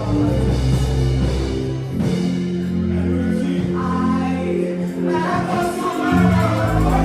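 Gospel music: a choir singing over instrumental backing, with held low bass notes that change every second or two.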